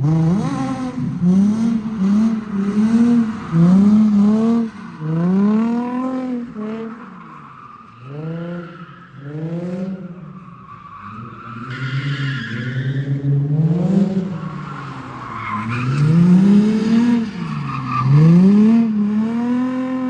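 Drift car engine revved up and down again and again, about once a second, with tyres squealing as the car slides partway through; near the end the revs hold steady.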